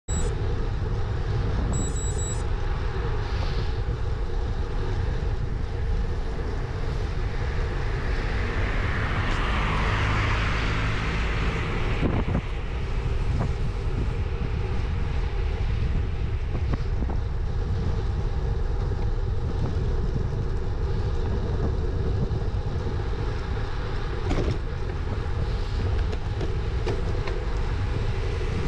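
Wind buffeting the microphone of a bike-mounted GoPro Hero 9 while riding, with steady low rumble of road noise. A hiss swells and fades about ten seconds in.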